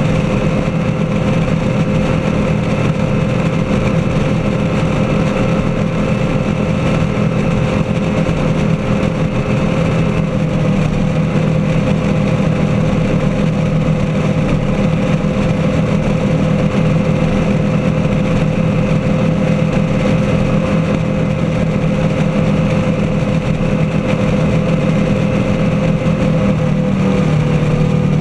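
Engines of a 35-foot Lightning performance powerboat running hard at a steady high speed, holding one pitch, with the rush of the churning wake behind the stern.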